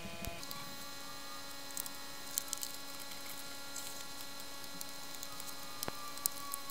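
Background music of sustained, held electronic chords that change once about half a second in, with one tone sliding slowly downward near the end. Faint small clicks sound over it.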